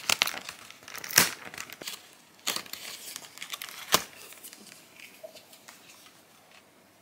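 Cardboard advent calendar door being pried open and a small packet of sewing labels pulled out: crinkling and tearing rustles with sharp snaps about a second in and again about four seconds in, then fainter rustling.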